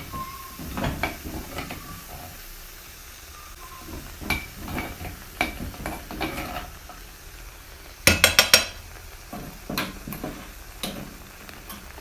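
A metal spoon stirring and scraping in a frying pan of tomato-paste sauce with onion and garlic, with scattered clinks while the mixture sizzles. About eight seconds in, a quick run of four loud metal clinks.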